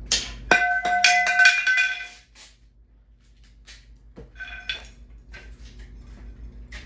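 Metal parts of a ceiling fan clattering and clinking, with a sharp knock about half a second in that leaves them ringing for a second or so. A second knock and shorter ring come a little after four seconds.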